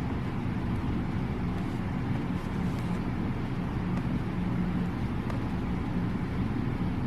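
Steady low background rumble with no breaks, like distant traffic or a running machine.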